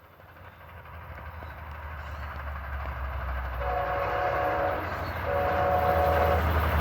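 Air horn of an Amtrak EMD F59PHI locomotive sounding two blasts of a chord, each about a second long, the first a little over three and a half seconds in and the second just past five seconds. Beneath the horn, the locomotive's engine and the wheels rumble louder and louder as the train approaches.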